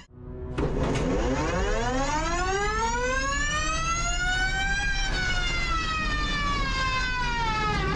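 Electric rallycross car's drive motor whining, heard from inside the cockpit: after a brief gap near the start, the whine climbs steadily in pitch for about four seconds as the car accelerates, then falls slowly as it slows, over a steady low rumble.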